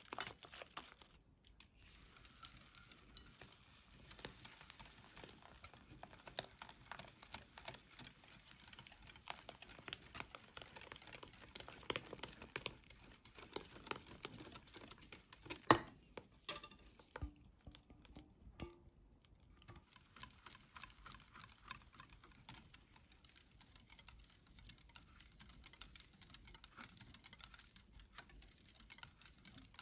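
Wire balloon whisk beating an egg mixture in a glass bowl: rapid, continuous ticking of the wires against the glass. One louder clink comes about halfway through, followed by a quieter stretch of a few seconds before the steady whisking resumes.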